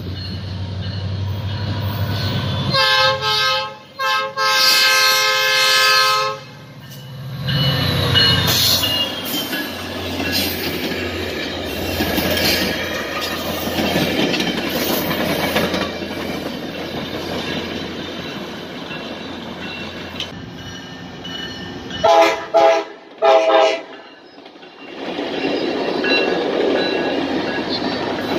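Tri-Rail commuter train blowing its multi-chime horn, a short blast and then a longer one about three seconds in, as it approaches the crossing. It then rolls over the crossing with steady wheel and rail noise, and gives three short horn blasts later on.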